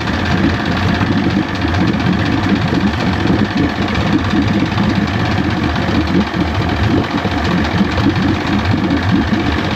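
1973 Johnson 65 hp two-stroke outboard motor running steadily.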